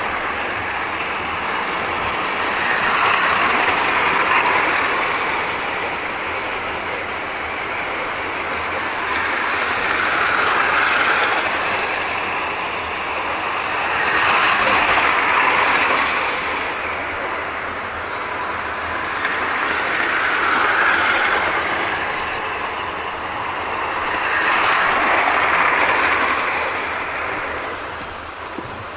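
00 gauge model trains running round a layout: a continuous whirr of small electric motors and wheels on the rails, swelling every five or six seconds as a train passes close by.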